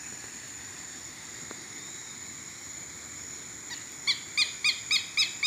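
Steady high insect buzz, then, about four seconds in, a southern lapwing starts calling: loud, harsh notes repeated about four times a second.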